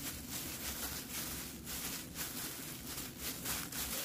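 Thin disposable plastic gloves crinkling and rustling in quick, irregular crackles as gloved hands roll and press a kimbap roll, over a low steady hum.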